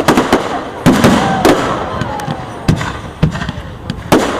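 Fireworks display: a string of sharp bangs, about one a second, some followed by a brief crackle or rumble, with crowd voices between them.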